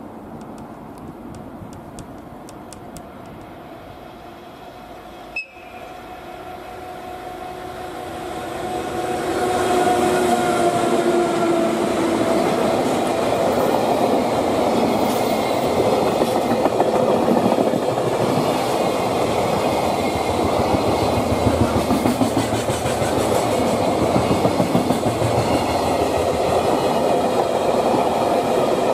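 Freight train passing: the EF81 electric locomotive approaches and the sound grows over a couple of seconds, then its long string of loaded container wagons rolls by with a steady rumble and rhythmic wheel clatter over the rail joints.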